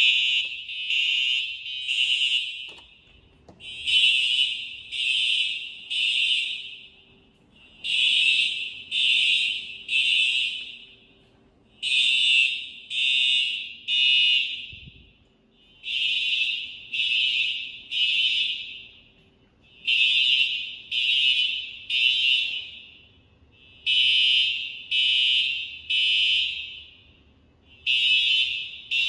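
Simplex TrueAlert fire alarm horns sounding in the three-blast temporal pattern, the standard building evacuation signal: three short high-pitched blasts, a pause, then three again, repeating about every four seconds. The uploader calls these horns insanely loud.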